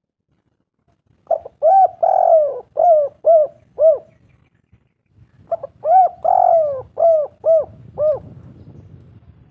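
Spotted dove (tekukur) cooing: two phrases a few seconds apart, each a quick run of short coos, one longer drawn-out coo, then three short coos.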